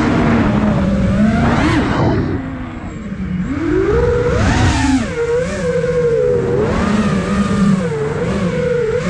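iFlight Nazgul Evoque F5 five-inch FPV quadcopter's motors and propellers whining, the pitch rising and falling constantly with the throttle. About two seconds in the throttle drops off and the whine goes quieter and lower, then it climbs sharply again around three and a half seconds in.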